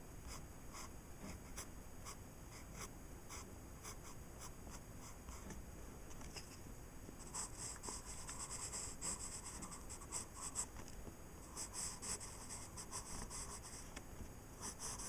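Pencil scratching on paper in a run of strokes: short separate strokes at first, then longer stretches of continuous scratching from about seven seconds in.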